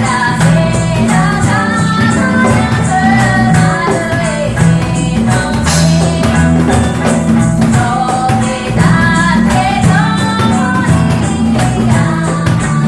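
Live band playing a song: a sung melody over a bass line and a steady, evenly repeated percussion beat.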